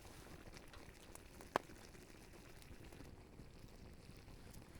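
Pot of water with pine needles bubbling faintly at a boil over a campfire, with small scattered ticks and one sharp pop about one and a half seconds in.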